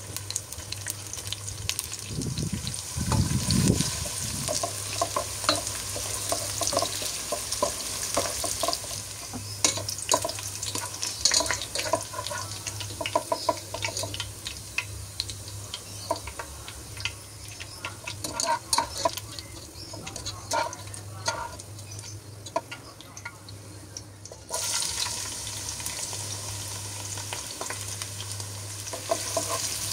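Sliced onions frying in hot oil: a steady sizzle, with a utensil clicking and scraping against the pan as they are stirred. About three-quarters of the way through, the sizzle jumps suddenly louder as fresh raw onions hit the oil.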